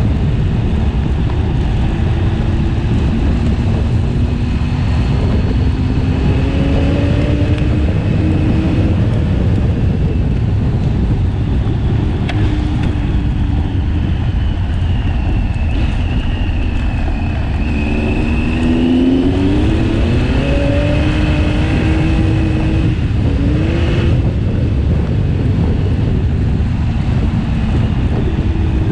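KTM 1090 Adventure's V-twin engine running along a gravel road under heavy wind rush on the microphone. Its pitch rises and falls with the throttle, climbing as it accelerates about a third of the way in and again about two-thirds of the way in.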